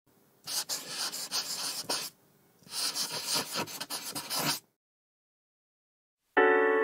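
Two scratchy strokes of a pen-writing sound effect, each about a second and a half long, with a short gap between them. A soft sustained piano chord comes in near the end.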